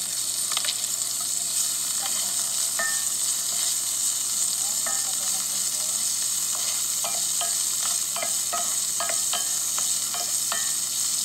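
Sliced onion and green vegetables sizzling steadily in hot oil in a pan. They are being stirred, with scattered short crackles and light clicks of a wooden spatula against the pan.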